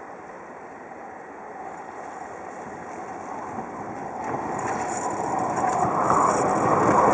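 Bombardier FLEXITY Classic low-floor tram approaching on its rails, its running noise growing steadily louder over several seconds.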